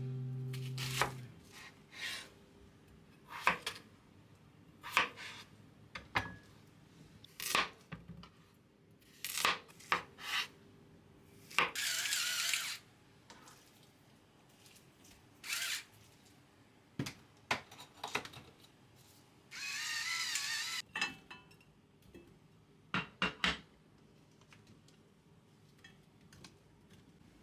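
Kitchen handling sounds: scattered clicks and knocks of items being picked up and set down, with two longer rustling or scraping noises of about a second each, one midway and one about three quarters through. A low hum stops about a second in.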